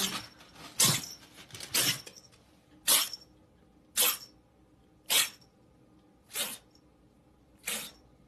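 A pet animal making a run of about eight short, breathy bursts, one about every second. The last few come a little further apart and a little quieter.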